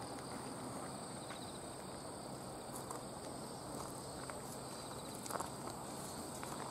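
Insects chirring steadily on a single high pitch, with a few soft footsteps scuffing on a dirt path.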